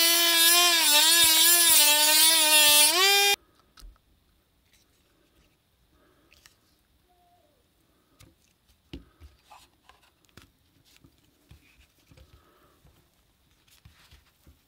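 Dremel rotary tool with a cutoff wheel running at high speed, its whine wavering in pitch as the disc cuts into the hollow plastic Guinness widget ball, then switching off abruptly about three seconds in. Faint clicks and scrapes follow as a small tool picks at the cut plastic.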